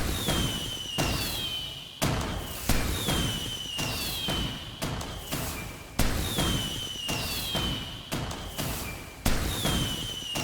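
Fireworks going off in quick succession: a sharp bang every second or so, each trailing off in crackle, with a high whistle falling in pitch after many of the bursts.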